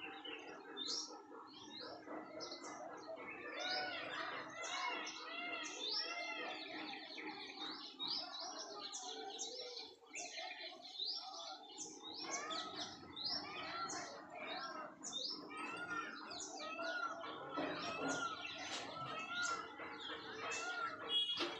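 A busy chorus of many small birds chirping, lots of short arched notes overlapping, with a brief lull about ten seconds in.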